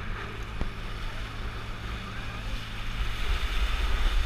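Water rushing and spraying along an inflatable banana boat towed at speed over choppy water, with wind buffeting the microphone; it gets louder near the end as the spray picks up.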